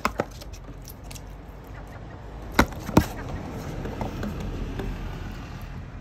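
Seagull's beak knocking against a clear plastic tub as it picks up fish: a few sharp clicks, two close together just after the start and two louder ones about half a second apart near the middle.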